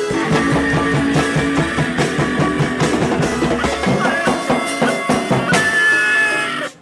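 Music rehearsal: a plucked string viola played over a steady drum beat, cutting out suddenly for a moment near the end.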